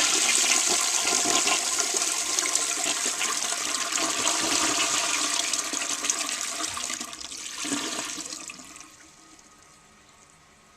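1943 Sentry toilet flushing: a loud rush of water through the bowl that holds for about seven seconds, then tapers off and dies away about nine seconds in.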